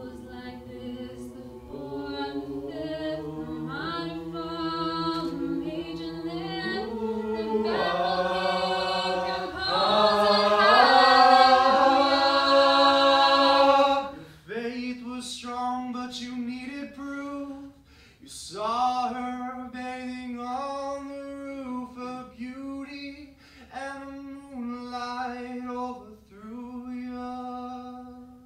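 Mixed youth choir singing a cappella, several voices in harmony, growing louder to a peak and breaking off about halfway. After that a single male voice sings on alone in shorter phrases with brief pauses.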